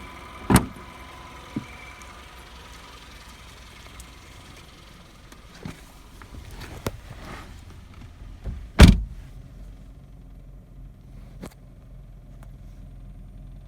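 Car sounds: a few sharp knocks and one heavy thump about nine seconds in, over a low steady hum.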